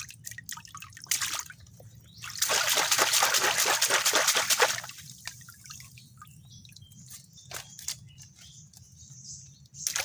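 Water pouring and splashing off a bamboo crab trap as it is lifted out of the creek, loudest for about two seconds in the middle. Dripping, trickling water and light knocks of the bamboo slats before and after.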